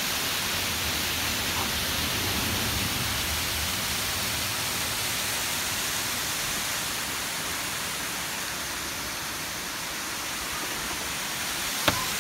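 Waterfall rushing, a steady even roar of falling water. A single short sharp click sounds near the end.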